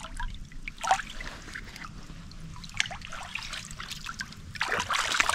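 Water splashing and sloshing in a shallow spring-fed pool as a person moves through it, in short irregular bursts, the loudest near the end.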